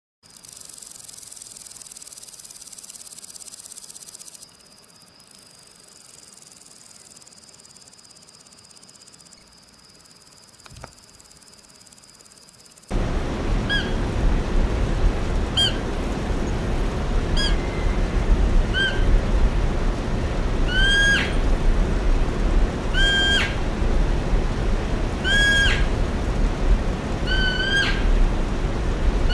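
For about the first thirteen seconds, a grasshopper's steady high buzzing with a thin whine under it. Then, over a louder low steady rumble, a deer gives about ten short high calls, each rising and ending in a hook, one every one to two seconds.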